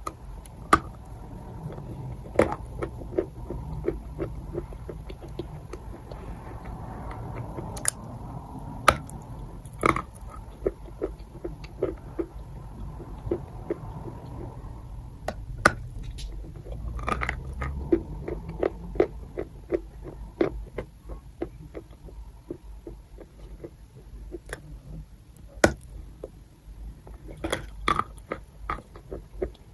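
Chalk being bitten and chewed: a sharp snap every few seconds as a piece is bitten off, with runs of quick small crunches between the bites as it is chewed.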